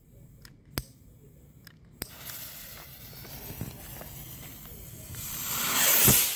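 Two sharp clicks, then a fuse hissing steadily and building near the end into the loud rush of a small potassium nitrate–dextrose sugar rocket motor firing, which cuts off suddenly.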